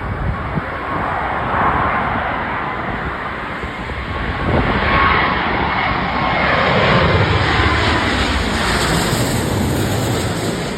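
Boeing 777 airliner's jet engines passing close on landing approach, the noise swelling, with a whine that slides down in pitch as the aircraft goes by.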